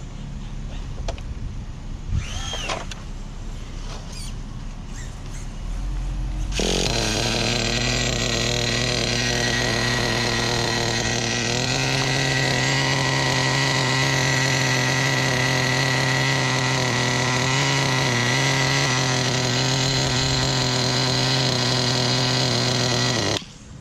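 Traxxas Jato 3.3's small two-stroke nitro engine idling steadily while its carburetor is adjusted with a screwdriver: quieter for the first six seconds, then louder with a high whine above the idle, the pitch stepping up slightly about twelve seconds in. The sound cuts off suddenly near the end.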